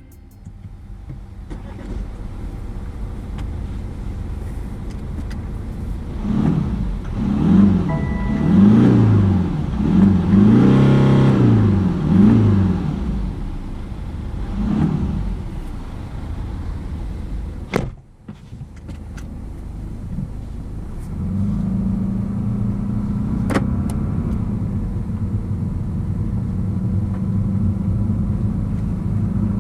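BMW 420d's four-cylinder diesel engine revved several times, each rev rising and falling in pitch, with the longest rev in the middle. After a brief break it settles into a steady, even run.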